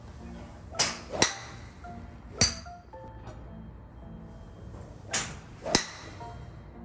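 Golf driver swung twice: each time a whoosh of the club, then about half a second later the sharp crack of the clubhead striking the ball off the tee, once about a second in and again near the end. Another sharp crack comes in between, and soft background music plays under it all.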